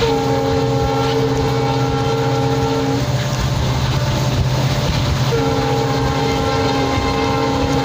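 Diesel locomotive horn sounding two long chords of several notes, about three seconds each, the second starting about five seconds in and still sounding at the end. Beneath it, the steady drone of the WDP4D locomotive's engine and the rolling noise of the train at speed.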